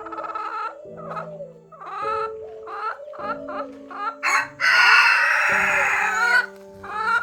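Chickens clucking in short repeated calls, then a rooster crowing once for about a second and a half past the middle.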